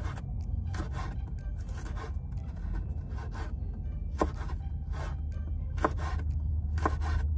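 Irregular scrapes and taps of a cooking utensil against a pan while noodles and vegetables are stirred, over a steady low hum, with faint background music.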